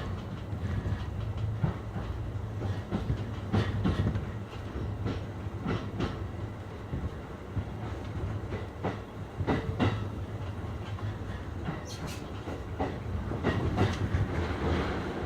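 JR East E531 series electric train running, heard from inside the carriage: a steady low hum with the wheels clicking over rail joints at irregular intervals.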